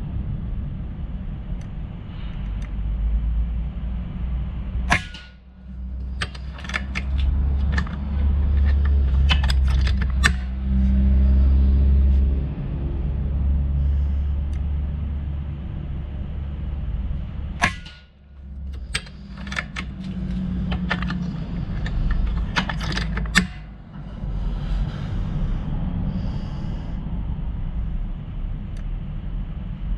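Vulcan 3 PCP air rifle firing, with sharp shots about five and eighteen seconds in. Each shot is followed by a run of quick mechanical clicks, all over a steady low rumble.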